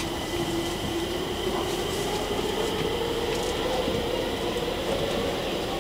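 Stockholm metro train running, heard from inside the carriage: steady wheel-and-track rumble with a whine from the drive that rises slowly in pitch as the train picks up speed.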